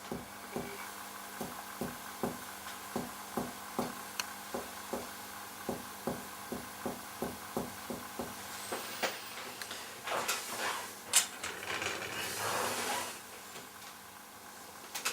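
Finger-on-finger percussion of the chest: a steady series of soft taps, about two and a half a second, stepping down the right midclavicular line toward the dulled note over the liver to find the height of the diaphragm. The tapping stops after about nine seconds, and then comes a stretch of rustling with a sharp click.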